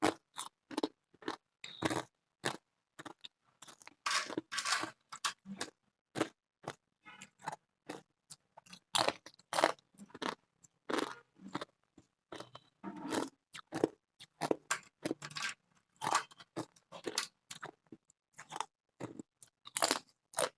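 Thin ice chips being bitten and chewed close to the microphone: a steady run of sharp, crisp crunches, a few each second, with short silent gaps between them.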